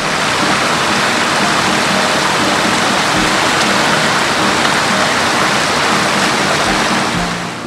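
Shallow stream water rushing over a rocky bed, a loud steady rush that fades out near the end.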